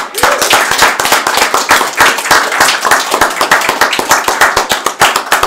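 A small group of people clapping, loud and dense, in applause.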